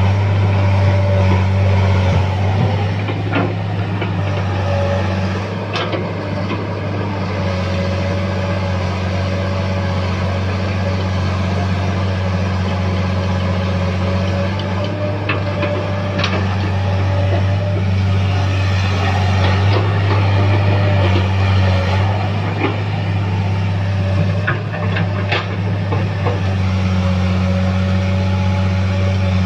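Caterpillar tracked excavator's diesel engine running steadily under load as it digs and loads soil, with a higher whine coming and going as the arm works and a few sharp knocks.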